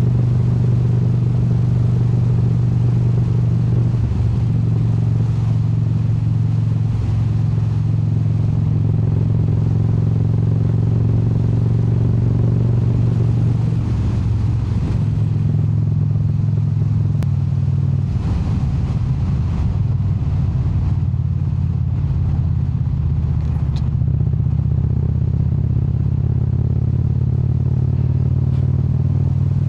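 Indian Super Chief Limited's Thunderstroke V-twin with a Rush exhaust running at steady cruise. The engine note steps to a new pitch about halfway through and changes again a few seconds later, as with a gear change or a change of speed.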